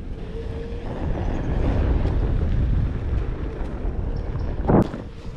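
Wind buffeting the microphone over the rumble of a Onewheel GT rolling along a dirt trail, louder after about a second, with a brief loud thump near the end.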